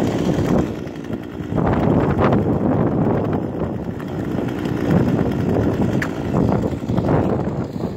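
An axe chopping into lake ice along a chainsaw cut, with a few sharp strikes around two seconds in and again near the end, over a steady low rumble.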